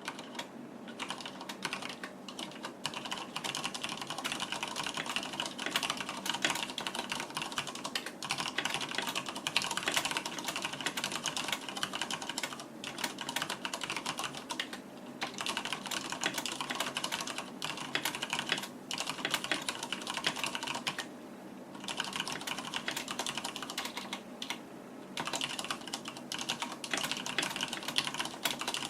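Continuous fast typing on a Deck Hassium mechanical keyboard with Cherry MX Red linear switches and PBT keycaps: a dense run of keystroke clacks, broken by a few short pauses.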